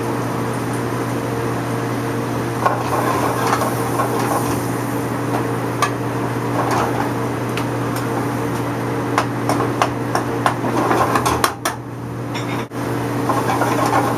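White wine pan sauce simmering and reducing around a chicken breast in a sauté pan, with scattered clinks and knocks of a utensil against the pan, a short flurry of them a bit past the middle, over a steady low hum.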